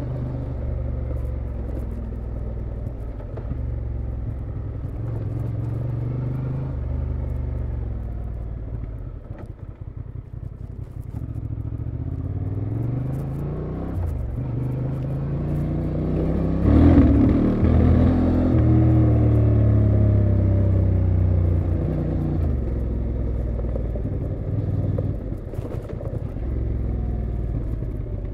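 2023 Honda Transalp XL750's 755 cc parallel-twin engine and exhaust running under way, its pitch rising and falling with the throttle. It eases off with a dip about ten seconds in, then pulls up through the revs to its loudest point around seventeen seconds, and winds down again near the end.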